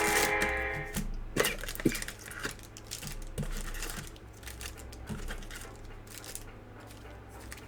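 Guitar music stops about a second in. Scattered light clicks, taps and rustles follow: a cardboard trading-card hobby box and its packs being handled and opened.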